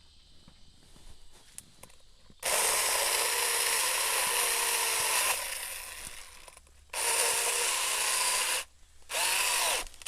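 Battery-powered 24-volt mini chainsaw with a 4-inch bar, triggered in three bursts as it cuts through a tree limb. The first run fades away slowly, and the later runs are shorter, as the limb binds and pinches the chain.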